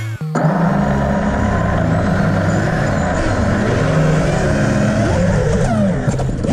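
Armattan Rooster FPV quadcopter's motors and propellers whirring, with the pitch gliding up and down as the throttle changes during takeoff. A steady electronic bass line runs underneath.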